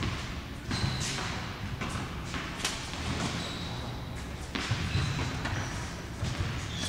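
Tennis ball struck by rackets and bouncing on an indoor hard court: several sharp hits spread through the rally, each followed by a hall echo.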